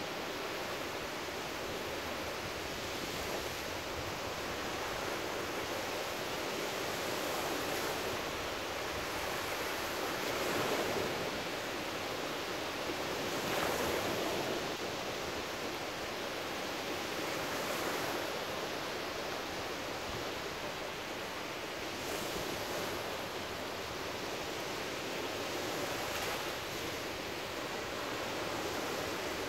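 Small ocean waves breaking and washing up on a sandy beach: a steady rush of surf that swells every few seconds as each wave comes in.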